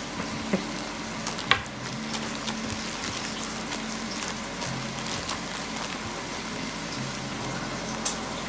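Vegetable oil frying with a steady sizzle, broken by a few sharp crinkles and knocks as floured meat is handled in a plastic zip-top bag; the loudest comes about a second and a half in.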